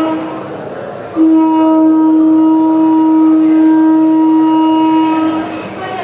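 A Tibetan Buddhist ritual wind instrument holding one long, steady, reedy note. It comes in about a second in and fades near the end.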